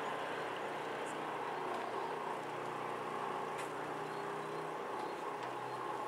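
Level-crossing barrier drives running as the barrier arms rise, a steady mechanical hum that stops near the end, over a low rumble.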